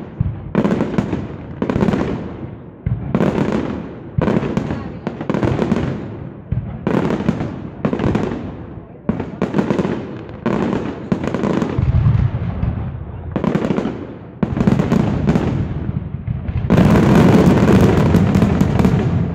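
Fireworks display: aerial shells bursting in quick succession, each a sudden bang that fades, about one a second. In the last couple of seconds the bursts run together into a dense, continuous barrage.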